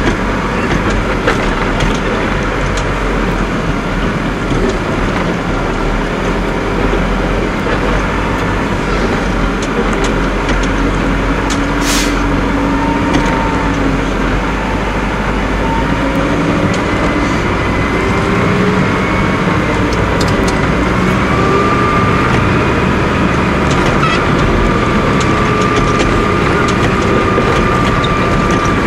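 Caterpillar IT28 wheel loader's diesel engine running under load, heard inside the cab, with a whine that shifts in pitch and settles into a steady higher whine about twenty seconds in. One sharp click about twelve seconds in.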